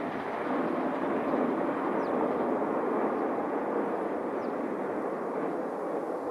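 Rumble of a KiHa 261 series diesel express train moving away after passing, a steady noisy wash that swells slightly and then slowly fades.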